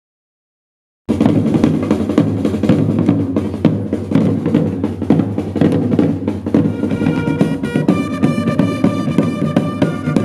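Side drums with rope tensioning, played by a historical drum corps, beating a rapid marching rhythm with rolls. The drumming starts abruptly about a second in. About seven seconds in, long herald trumpets come in with held notes over the drums.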